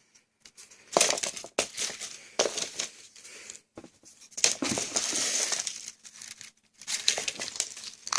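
Packaged fireworks being handled, their plastic wrapping crinkling and rustling in irregular bursts with short pauses between.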